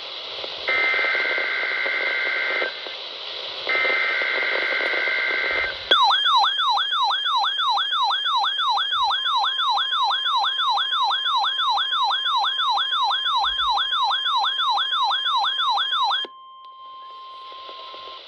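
Emergency Alert System test sequence. First come two buzzy digital header data bursts about two seconds each, a second apart. Then a loud warbling, siren-like alert tone sweeps up and down about three times a second for about ten seconds and stops abruptly. A quieter steady single tone follows, the NOAA Weather Radio warning-alarm tone.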